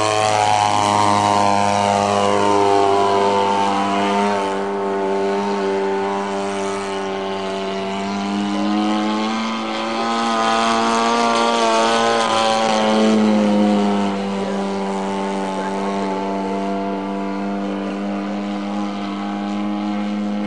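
Gas engine and propeller of a 27% CAP 232 radio-controlled aerobatic model plane in flight: an XYZ 50cc two-stroke on a 20x8 Xoar prop, buzzing steadily. Its pitch swells and sags gradually a few times as the plane manoeuvres.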